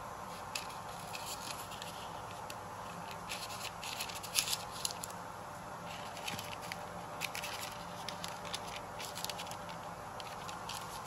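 Metal offset spatula scraping and ticking as it spreads batter across a parchment-lined sheet pan, with light crinkling of the parchment, in irregular clusters over a steady background hum.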